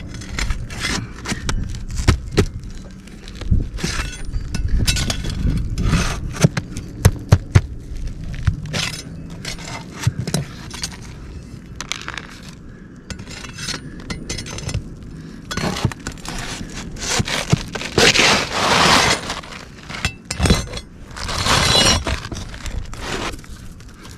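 Metal tool clicking, knocking and scraping against asphalt roof shingles and roofing nails while the nails are being pried out, with sharp clinks and two longer scrapes near the end.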